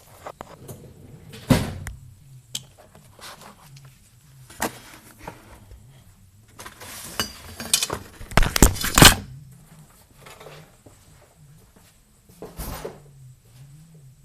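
Objects being picked up, moved and set down on a work surface to clear it: scattered knocks and clunks with some rustling, the loudest burst of clatter about eight and a half seconds in.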